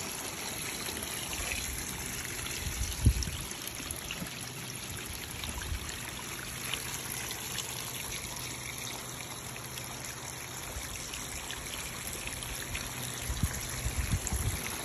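Water from a garden hose running at full blast, flowing and trickling steadily over asphalt roof shingles. A dull bump about three seconds in, and a few more near the end.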